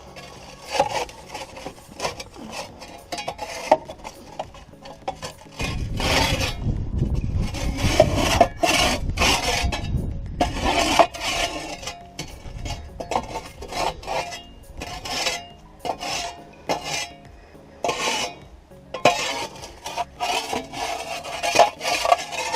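A metal hand tool scraping and prying packed dirt out of a Kobelco SK150 excavator's steel track and undercarriage, in many irregular scrapes and knocks. A low rumble runs under the scraping for several seconds from about six seconds in.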